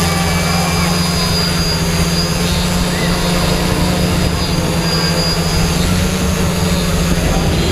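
Steady, loud low mechanical hum that holds unchanged throughout, with faint voices underneath.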